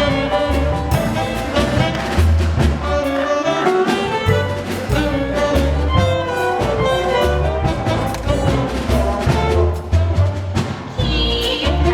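Orchestral accompaniment of a musical-theatre song, playing an instrumental passage with brass prominent over a repeating bass line.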